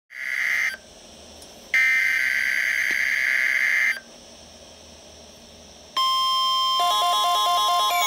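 NOAA Weather Radio test broadcast from a Midland weather alert radio's speaker: two bursts of harsh, buzzy digital SAME data header, then about six seconds in the steady 1050 Hz warning alarm tone, joined under a second later by a fast warbling electronic alert tone as the radio's alarm activates.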